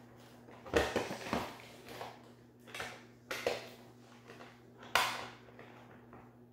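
Hands working a model horse loose inside its cardboard box: a series of scrapes, rustles and knocks of cardboard and plastic, with the sharpest snap about five seconds in.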